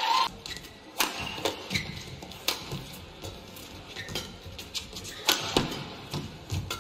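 Badminton rally: sharp racket strikes on the shuttlecock, roughly one a second, with a few short squeaks from players' shoes on the court.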